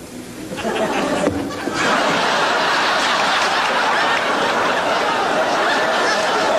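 Theatre audience laughing, swelling over the first two seconds into loud, sustained laughter.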